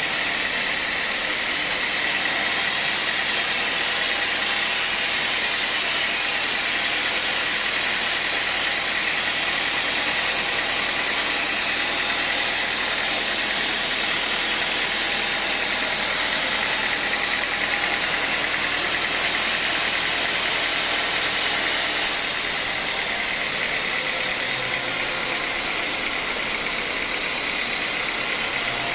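Sawmill machinery running steadily, a motor-driven saw with a steady whine.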